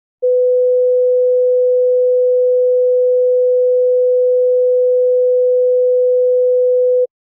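Steady pure 500 Hz sine tone synthesized in SuperCollider by the Fb1_ODE unit generator, which numerically integrates a harmonic-oscillator differential equation sample by sample. It starts about a quarter second in and stops abruptly about seven seconds in, when the synth is released.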